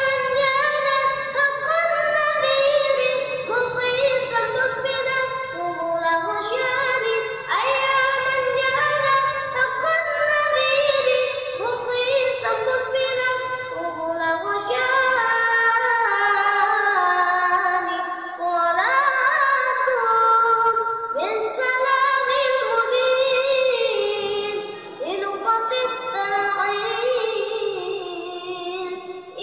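A young boy singing sholawat, an Arabic devotional song in praise of the Prophet, with a high clear voice in long, ornamented phrases whose notes slide and waver, pausing briefly for breath between phrases.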